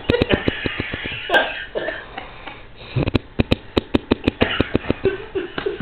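A man snoring with a fast flapping rattle, about six or seven beats a second, in two bouts with a breathy pause between them, like two butt cheeks flapping.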